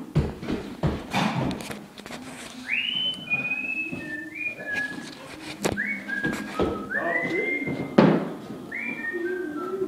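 A person whistling a tune in short notes that swoop up and then hold, over scattered knocks and clatter; a sharp knock about eight seconds in is the loudest sound.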